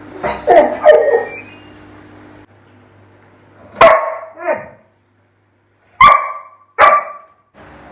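A dog barking: a few sharp barks just after the start, then two more pairs of barks about four and six seconds in.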